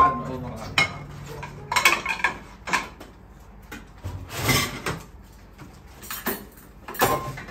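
Ceramic plates and cutlery clinking and clattering in irregular knocks as dishes are handled at a kitchen sink and an open dishwasher, with one louder clatter about halfway through.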